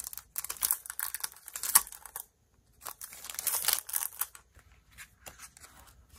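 Clear cellophane sleeve crinkling and rustling as a paper notepad is pulled out of it and the sleeve is handled, in two bursts. A few light paper and plastic ticks follow near the end.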